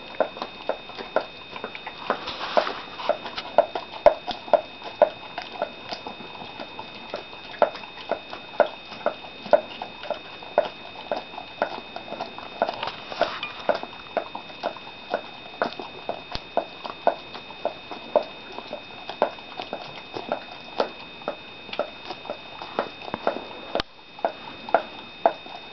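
Dogs licking and smacking their mouths on sticky peanut butter: a steady run of short wet clicks, two or three a second.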